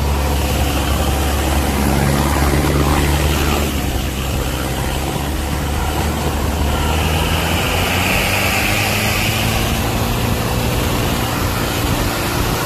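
Off-road 4x4 engine running steadily under load while driving through deep floodwater, with water rushing and splashing against the vehicle.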